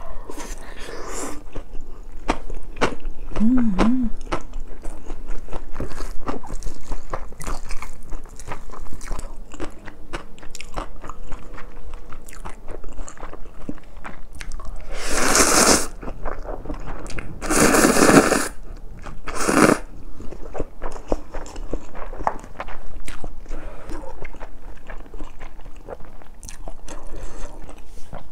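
Close-up mouth sounds of eating: steady chewing and crunchy bites of fried rice with bacon, Spam and kimchi. About halfway through come three loud slurps as spicy Buldak stir-fried noodles are sucked in.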